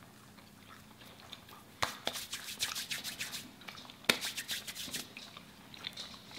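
Close-miked crackling and rustling of crispy fast food being handled, in two short bursts about two and four seconds in.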